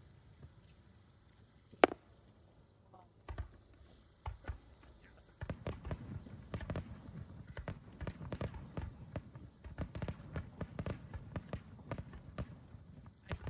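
Fireworks shells bursting: scattered bangs with one sharp, loud crack about two seconds in. From about five seconds on there is a dense, rapid string of bangs and crackles.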